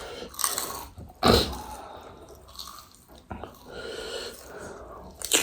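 Close-miked eating of pani puri: wet chewing and slurping of the spicy water-filled shells, with a few sharp crunches about a second in, near the middle and at the end.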